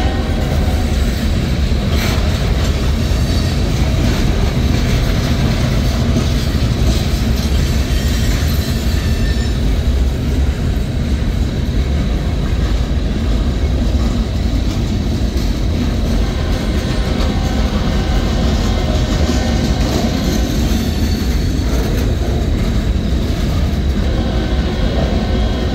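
Freight cars of a mixed-freight train rolling past at close range: covered hoppers, a tank car and centerbeam lumber flatcars. Their steel wheels make a steady, loud rumble on the rails.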